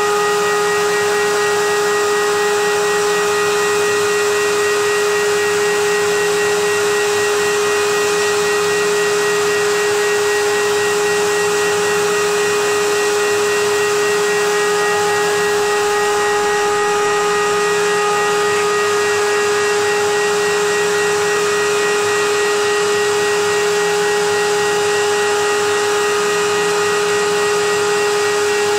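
High-speed CNC router spindle running with a steady high-pitched whine, while the dust extraction runs under it as a constant rushing hiss.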